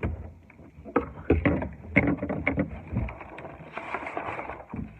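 A toy set's cardboard box being opened by hand and its contents handled: a run of knocks and taps, then about a second of rustling packaging near the end.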